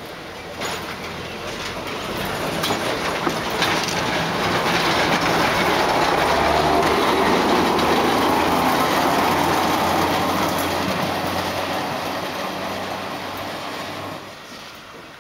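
Düsseldorf tramcar 107 from 1936 running past close by on the rails: its running noise and wheel clatter build to a peak about halfway through, then fade as it moves away. A few sharp clicks of the wheels on the track come in the first few seconds.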